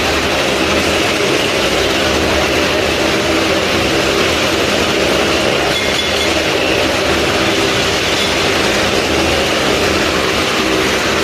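A large engine or machine running steadily and loudly, without a break.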